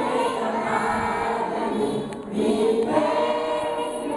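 A children's choir singing the school hymn together, with a short break between phrases about halfway through.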